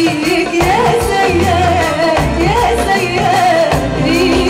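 Live Arabic tarab song: a woman singing a wavering, ornamented melody over a large ensemble of strings, oud, keyboards, bass and percussion.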